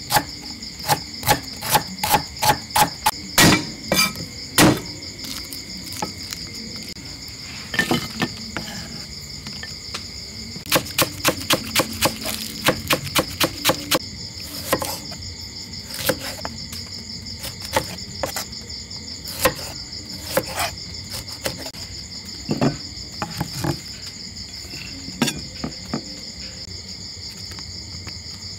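Cleaver chopping on a wooden chopping block: quick runs of sharp knocks, a few a second, near the start and again about halfway through, then single chops spaced out. Under it runs a steady high trilling of insects.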